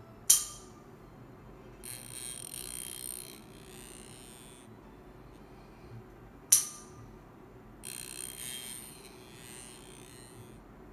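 Close-up ear-cleaning sounds: a sharp click, then a second and a half later a crackly rustling as a feather ear brush is twirled in the ear canal. The pattern comes twice, about six seconds apart.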